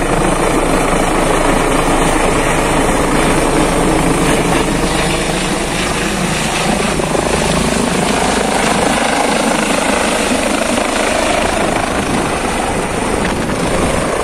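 Eurocopter EC135 helicopter flying low overhead and descending to land: a loud, steady rotor and turbine noise whose pitch shifts slowly as it passes and turns.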